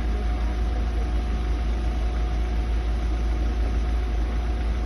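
Vehicle engine idling: a steady low rumble with a thin, even hum above it.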